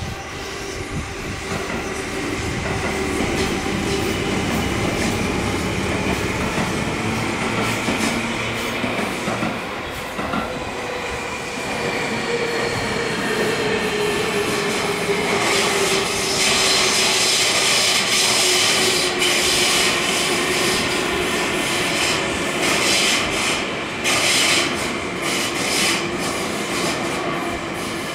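Electric commuter trains on the Tobu Skytree Line passing each other: a steady rumble of wheels and rail-joint clacking, with a tone that slowly falls in pitch around the middle. From about halfway a bright, hissing squeal and clatter from the wheels grows louder.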